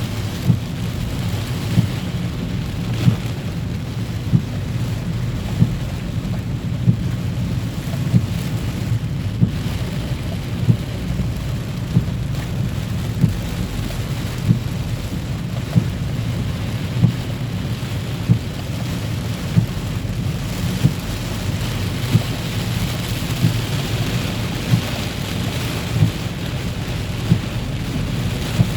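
Heavy rain pouring steadily, with a low rumble under the hiss and a sharp tap repeating about every second and a quarter.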